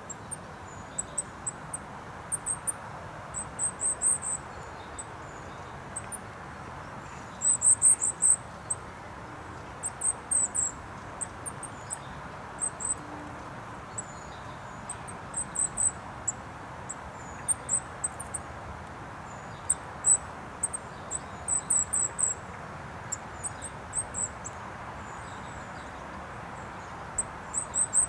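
Goldcrest giving very high, thin notes in quick little clusters, repeated every second or two, over the steady hum of road traffic.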